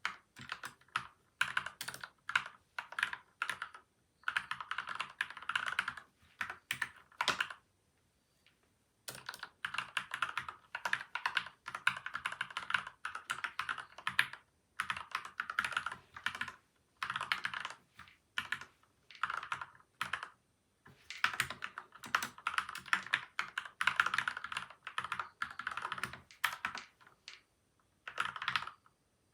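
Typing on a PCL87 mechanical keyboard with lubed Gateron Milky White and Outemu Yellow switches, dampened with tape and foam: quick runs of keystrokes with brief pauses between bursts.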